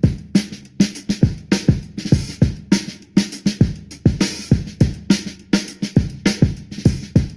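Intro music with a steady drum beat, a regular kick-and-snare rhythm.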